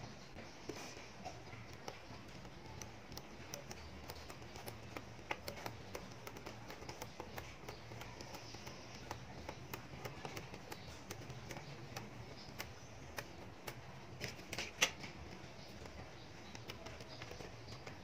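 Small magnetic balls clicking together as fingers place and press them into a flat hexagonal sheet: many light, irregular clicks, with a louder cluster of snaps about three-quarters of the way through.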